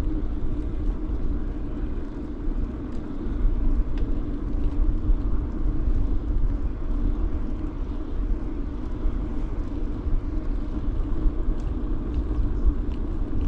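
Steady wind rumble on the microphone and rolling noise from a bicycle being ridden along a country path, with a few faint clicks.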